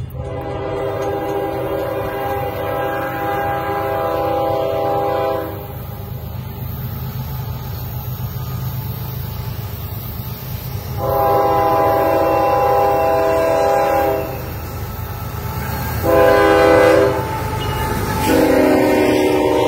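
CSX diesel freight locomotive's air horn sounding the grade-crossing signal: two long blasts, a short one, then a final long blast as the engine comes alongside, over the steady low rumble of the approaching train.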